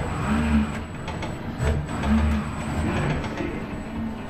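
ABB industrial robot arm's servo motors whirring as the arm moves, a low hum that rises and falls in pitch several times with the arm's motions.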